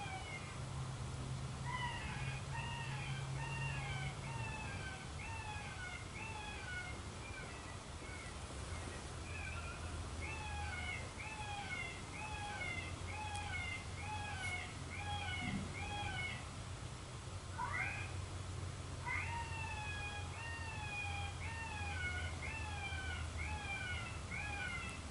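Primos Dogg Catcher electronic predator call playing a prey-in-distress sound: runs of short, high cries, each falling in pitch, about two a second, with brief pauses and one rising cry about two-thirds of the way through.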